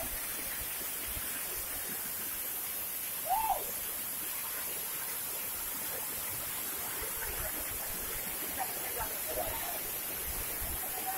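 Steady rushing of a waterfall or stream, with a short rising-and-falling call about three seconds in and faint distant voices near the end.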